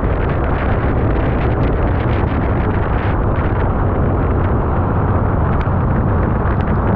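Modified C7 Corvette Grand Sport's 6.2-litre V8 exhaust running close by, mixed into a heavy, steady rush of wet-road and wind noise, with a few short cracks.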